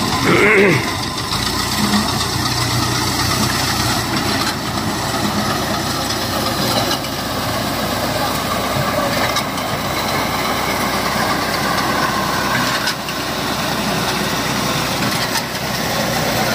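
Massey Ferguson tractor's diesel engine running steadily under load as it drives a front-mounted reaper-binder through standing wheat.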